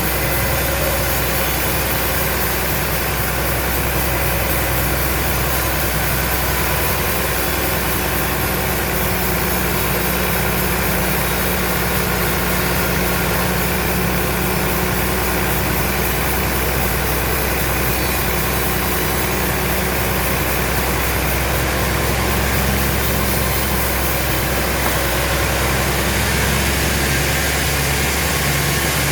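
Sawmill machinery running steadily: an engine or motor drone at constant speed, with no change in pitch or level.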